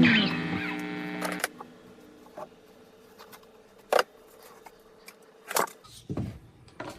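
A rock music track with guitar ends, its last chord dying away within the first second and a half. Then, against quiet, come a few sharp clicks and knocks of plastic toy castle pieces being handled.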